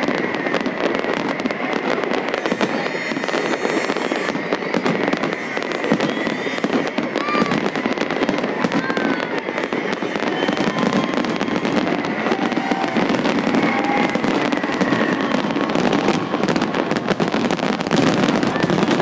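Fireworks grand finale: a dense, unbroken barrage of bangs and crackles from many shells bursting at once.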